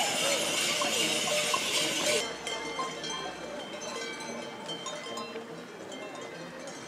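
Many metal bells on carnival costumes jangling as the runners move, loud at first, then dropping suddenly after about two seconds to a quieter, lighter ringing.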